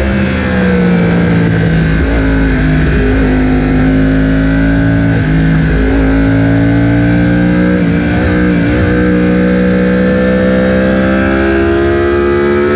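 Yamaha R1 sportbike's crossplane inline-four engine heard onboard under steady throttle. Its pitch sags slightly at first, then climbs slowly, with a few brief dips. Wind rush runs under it.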